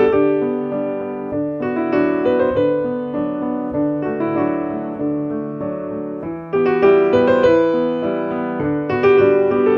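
Piano music: a slow, gentle piece with notes struck and left to ring, a new phrase starting about two-thirds of the way through.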